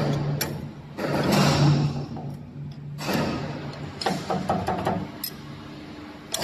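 Spiral duct forming machine run in short spurts, about four in all: a low hum with the metal strip rasping and rattling through the forming head, and sharp clicks and knocks of the sheet metal being handled between them.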